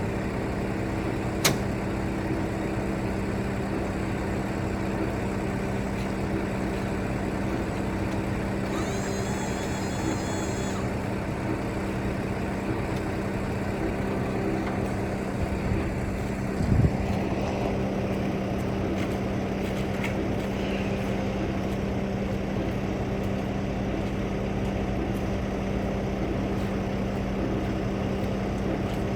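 An engine running at a steady speed, with a sharp click about a second and a half in and a thump a little past halfway.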